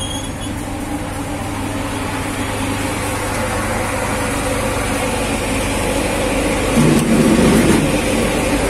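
A diesel passenger train running steadily beside the carriage: a low engine hum under a rumble that grows gradually louder, with a brief louder surge about seven seconds in.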